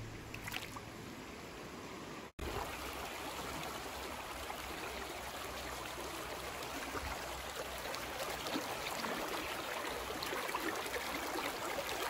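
Mountain creek running over rocks, a steady rush of flowing water. The sound cuts out for an instant about two seconds in.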